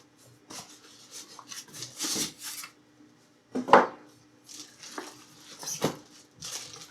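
A box and its packing being handled and rummaged through: irregular rustles, scrapes and knocks, with a sharp knock a little under four seconds in and another near six seconds.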